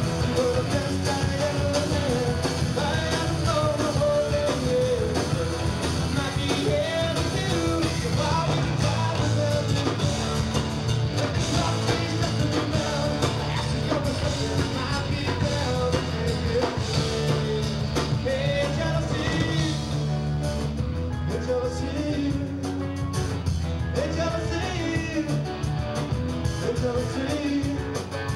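Live rock band playing a song: electric and acoustic guitars and a drum kit, with a lead vocal singing over them.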